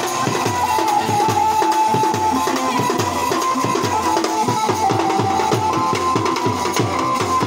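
Live folk band music: a large bass drum beaten with a stick and metal percussion keep up a fast, steady beat, with a sustained, slightly wavering high melody tone over it.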